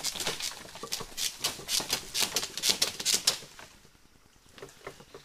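Rapid, irregular crackling and clicking, like dry leaves and twigs being crushed and shifted among rocks, that dies down to a few scattered clicks after about three and a half seconds.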